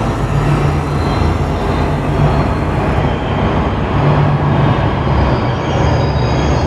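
Electronic ambient sound effect: a dense, steady rumbling noise like a passing train, with a low hum that swells in and fades out several times.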